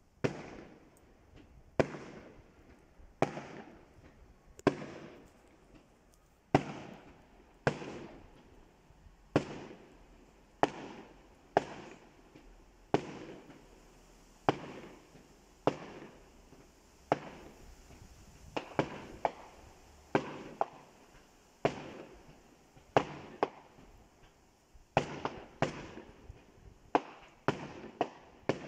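Aerial fireworks bursting: about two dozen sharp bangs, each trailing off in an echo, about one every second and a half at first and coming faster, some in quick pairs, in the second half.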